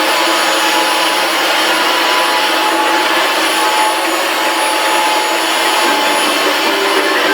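Vacuum cleaner motor running steadily, a dense rush of air with a thin high whine over it.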